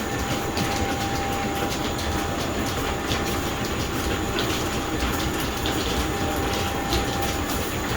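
Old belt-driven workshop machinery running: the line shaft and flat belts turning with a steady, even clatter and a constant hum.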